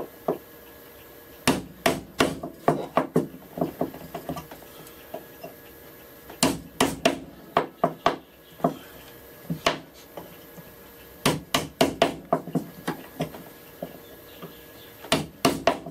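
Small wood chisel tapped into a wooden plane body in quick runs of sharp knocks with short pauses between, chopping out a recess for a square nut.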